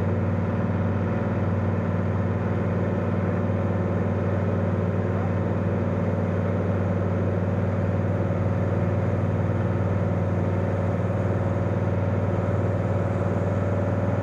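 Cozy MKIV's pusher aircraft engine and propeller running at a steady drone during the climb-out just after takeoff, heard from inside the cockpit.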